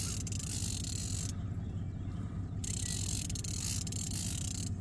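Fishing reel buzzing in two stretches, about a second and then about two seconds long, as line runs against a hooked fish. A steady low hum runs underneath.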